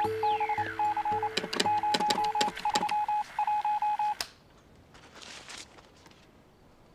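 Morse code beeps from a military field radio set: one tone keyed on and off in dots and dashes, over a steady hum, a falling radio whistle and sharp crackles of static. It cuts off abruptly about four seconds in, leaving only a faint rustle.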